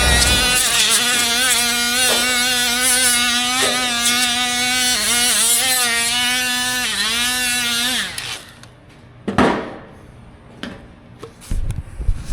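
Angle grinder running at speed, its pitch sagging briefly a couple of times as it is pressed into the work, then shut off about eight seconds in. A few knocks and a short scraping burst follow.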